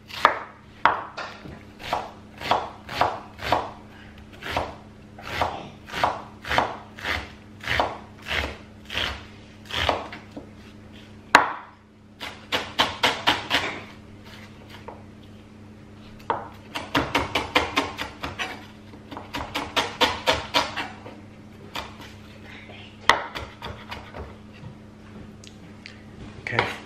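Chef's knife slicing and then finely chopping half an onion on a wooden chopping board: steady knife strokes about two a second at first, then quick runs of rapid chopping in the second half.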